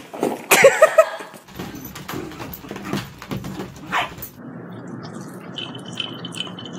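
A dog yipping and barking, loudest about half a second to a second in. A steady hiss takes over in the last couple of seconds.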